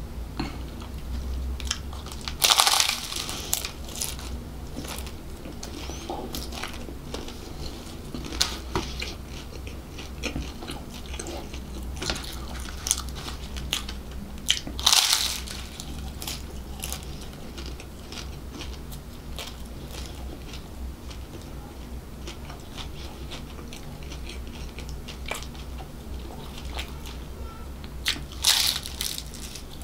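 Close-miked bites into flaky puff pastry. It crunches loudly about two and a half seconds in, again at about fifteen seconds and near the end, with chewing and small crackles in between.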